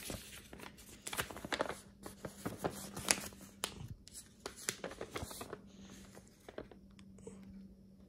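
Pages of a paper owner's manual being leafed through and folded back by hand: a run of papery rustles and flicks, busiest in the first five seconds and quieter near the end. A faint steady hum lies underneath.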